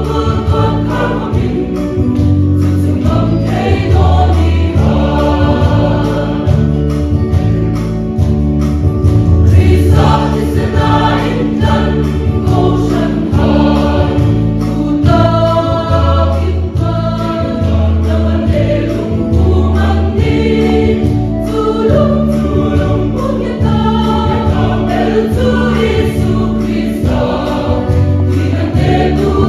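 Choir singing gospel music over instrumental accompaniment with a steady beat and bass line.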